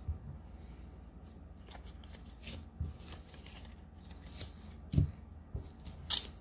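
Pokémon trading cards being handled and slid over a playmat: quiet card rustles with a few light taps, the loudest about five seconds in.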